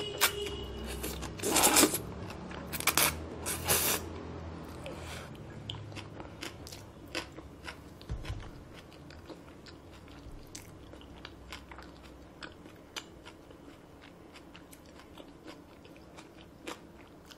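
Close-miked eating of bibim noodles: a few loud slurps and bites in the first four seconds, then steady chewing with small wet mouth clicks.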